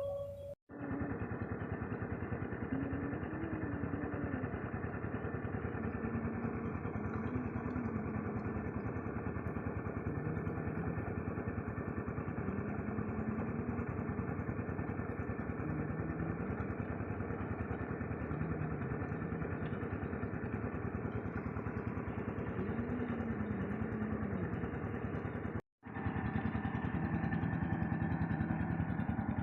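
JCB 3DX backhoe loader's diesel engine running steadily under working load, its note rising and falling a little. The sound cuts out for an instant twice, about half a second in and again near the end.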